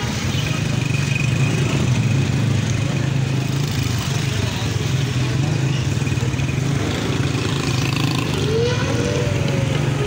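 Busy street ambience: motorcycle and car engines running with a steady low hum, under a wash of crowd chatter. Near the end a pitched tone rises and then slowly falls.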